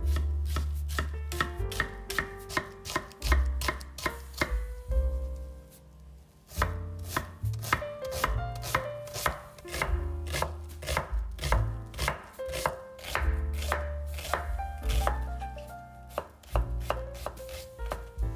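Kitchen knife chopping food on a cutting board in quick, even strokes, several a second, with a short break about a third of the way in. Background music plays under it.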